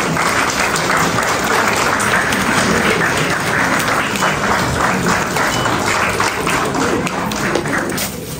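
Audience applauding, with the clapping dying down near the end.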